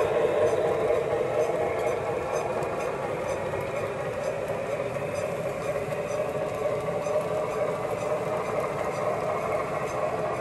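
Lionel O-gauge freight train running on three-rail track: the steady rolling rumble of the cars' wheels over the rails, easing slightly over the first couple of seconds and then holding even.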